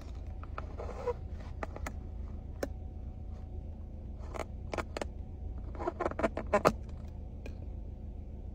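A small dog pulling a plastic drinking straw up through a fast-food cup's plastic lid with its teeth: scattered squeaks and sharp plastic clicks, with the loudest run of clicks a little past the middle, over a steady low hum.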